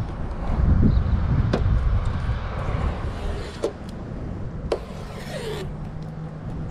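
Red plastic liner being peeled off 3M double-sided tape on a car's trunk lid, with a few light taps and clicks of hands on the bodywork and a brief rasp of the strip pulling free about five seconds in. Under it is a steady outdoor rumble, and a low steady hum comes in near the end.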